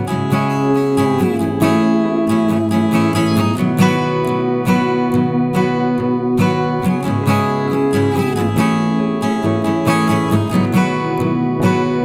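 Background music led by a strummed acoustic guitar, with chords struck in a steady rhythm and a few sliding notes.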